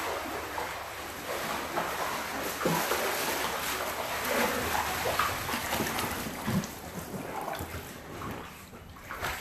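Floodwater splashing and sloshing as people wade through it, with a few faint, brief vocal sounds.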